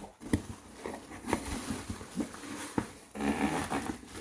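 Packaging being handled and opened by hand: rustling with a few sharp taps and clicks, busier near the end.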